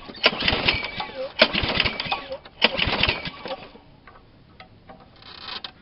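Old petrol lawn mower being pull-started: about three quick pulls on the recoil starter crank the engine with a rattling clatter, but it does not catch. The noise stops after about three and a half seconds.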